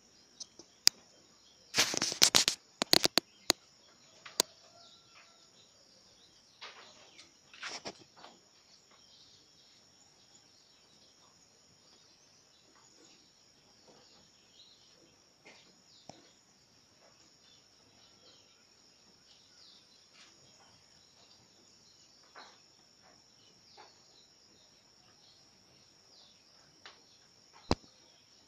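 Young rabbits moving about in a crowded wire-mesh cage: scattered clicks and knocks, with a close cluster of loud ones about two seconds in, over a steady high-pitched drone.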